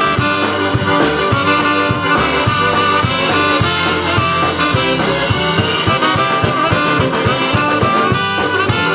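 Live band playing an instrumental passage: trumpet and saxophone over a steady drum beat and bass guitar.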